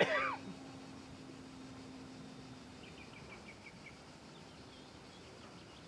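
Small bird chirping outdoors: a quick run of about eight short chirps about three seconds in, and fainter chirps near the end, over a faint hiss and a steady low hum that fades out.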